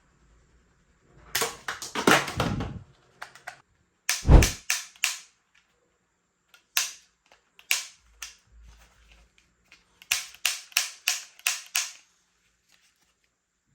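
Toy gun clicking and snapping as it is worked and fired: a quick cluster of clicks, then four snaps close together, two single snaps, and a run of about seven snaps at roughly three a second near the end.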